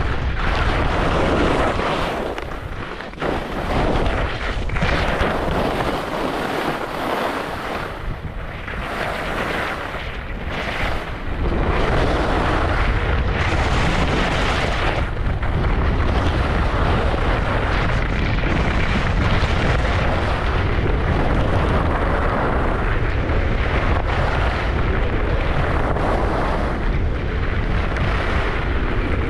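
Wind buffeting the microphone of a camera carried by a skier on a fast downhill run, with the hiss and scrape of skis on snow. The low rumble eases off for a few seconds after the start and then comes back steady.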